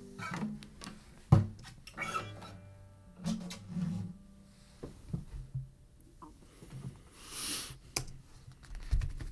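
Handling noise after a song on an acoustic guitar: scattered clicks and knocks as the guitar and player move, with a loud thump about a second and a half in and a short hiss about seven seconds in.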